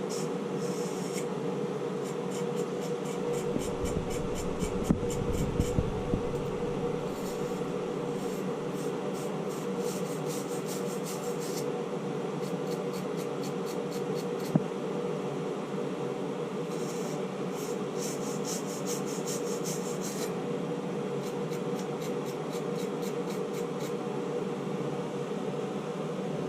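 Copper pipe and fittings being scrubbed clean for soldering: runs of fast, rhythmic rasping strokes that stop and start, over a steady low hum.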